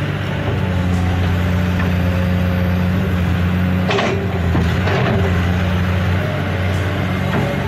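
Steady low engine-like drone of a construction vehicle, with a short clatter about four seconds in and a weaker one near five seconds.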